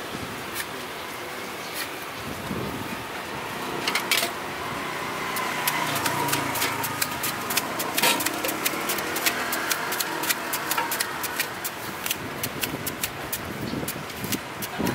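A knife cutting a firm fruit held in the hand: quick sharp clicks of the blade going through the flesh and pieces dropping into a small steel tray. The clicks grow thicker about four seconds in and run at several a second, over a steady hum of street traffic.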